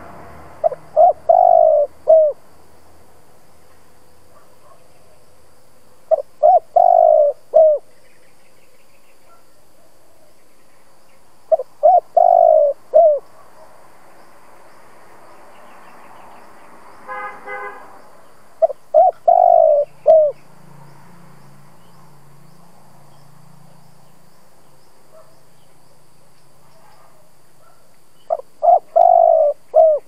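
Spotted dove cooing its short phrase of three or four notes, five times with pauses of several seconds between.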